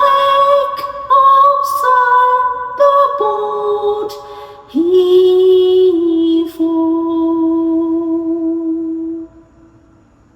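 A woman singing the closing phrase of a song, moving through several notes and then holding one long final note that stops about nine seconds in.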